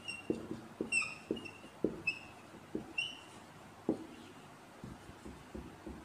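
Dry-erase marker writing on a whiteboard: soft strokes and taps of the pen tip, with a series of short high squeaks, most of them in the first three seconds.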